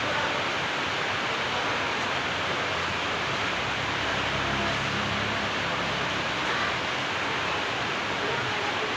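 Steady, even hiss of background noise, with a faint low hum in the middle.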